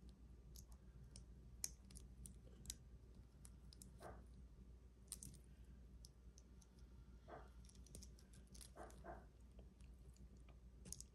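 Faint, scattered clicks and light clinks of a costume-jewelry piece's metal parts being handled and fitted together.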